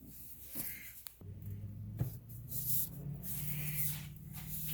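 Plastic air filter housing cover being worked into place on the air box, with faint scraping and small clicks, and a faint low hum underneath.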